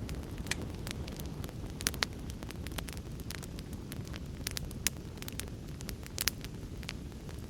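A fire crackling: irregular sharp pops and snaps, a few louder ones scattered through, over a steady low rumble.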